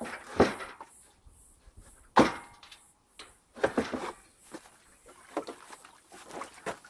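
Metal blade guard of a Lucas swing-blade sawmill being unlatched and lifted off: a handful of separate clanks and knocks, one sharp knock about two seconds in the loudest, with a brief metallic ring.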